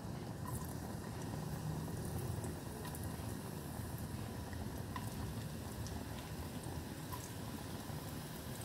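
Thinly sliced onions frying in hot oil in a frying pan: a steady soft sizzle with a few small pops.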